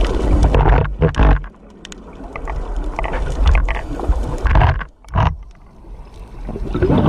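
Scuba diver's regulator underwater: exhaled bubbles rumbling in bursts at the start and again about four and a half seconds in, with quieter gaps between breaths, the next exhale building near the end.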